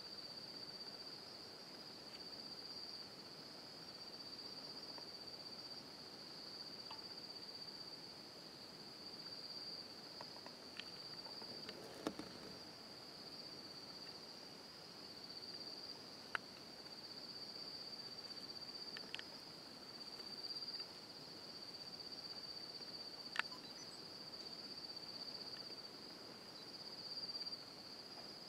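Steady high-pitched chirring of a night cricket chorus, faint, with a few sharp clicks scattered through it.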